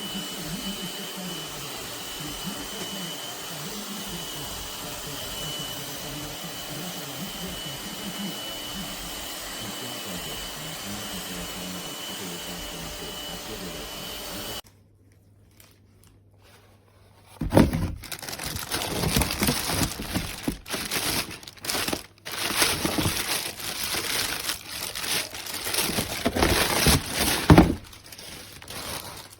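Robot vacuum running steadily, a motor noise with a thin high whine. It stops about halfway through. After a short pause, a louder, uneven rushing noise comes in bursts with sudden breaks.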